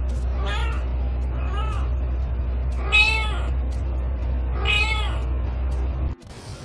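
Domestic cat meowing four times, each call rising and falling, the last two louder and longer than the first two. A steady low hum runs underneath and stops abruptly near the end.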